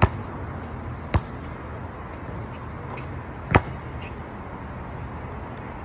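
A basketball bouncing on an outdoor court: three sharp bounces, one at the start, one about a second in and the loudest about three and a half seconds in, over a steady low rumble.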